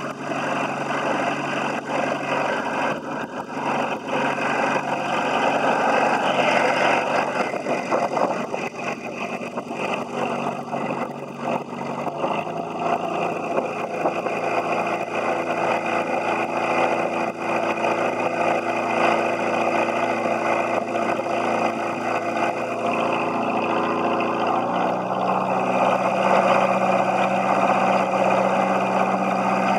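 Atomic 4 four-cylinder gasoline inboard engine running steadily under way as it is run up toward 2,000 rpm. Its note shifts about twelve seconds in and again near twenty-five seconds.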